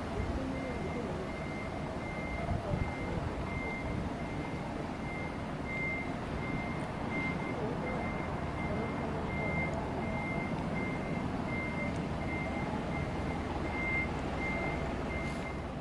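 A vehicle's reversing alarm beeping steadily, one high tone repeated at an even rate, over the low rumble of an engine.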